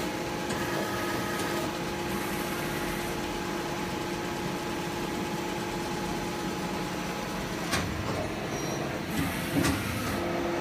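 Tsugami FL-32 CNC lathe running, a steady machine hum with several held tones over a noisy bed, broken by a sharp click about three-quarters of the way in and a couple of knocks near the end.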